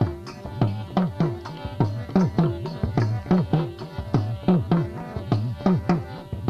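Instrumental break in a Gujarati dakla devotional song: a drum beats a quick, steady rhythm, its low strokes bending in pitch, over a faint held melody line.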